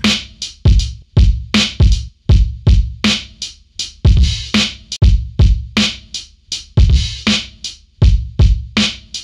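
Drum group playing back in a repeating groove of kick and snare/cymbal hits, about two to three hits a second, each with a heavy low end and a bright top. It is running through an EQ plugin during mixing.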